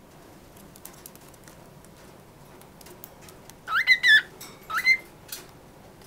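Pet parrot calling: two short whistled calls, each sliding up in pitch, about four and five seconds in, with faint clicks around them.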